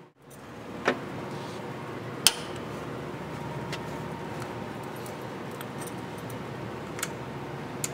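A steel part is set down on a surface grinder's magnetic chuck with sharp metallic clinks, the loudest about two seconds in and lighter clicks near the end, over the machine's steady hum.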